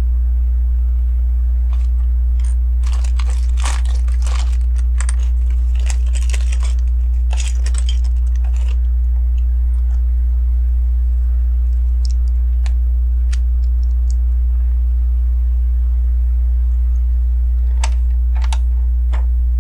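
Small plastic LEGO pieces clicking and rattling as they are handled and pressed into place, a busy run of clicks in the first half and only a few scattered ones after. A steady low electrical hum runs underneath throughout and is the loudest sound.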